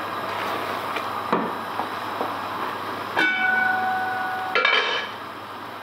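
A spatula stirs and scrapes thick curry masala sizzling in a nonstick pot. About three seconds in a clang rings on for over a second, and a second clatter follows about a second later.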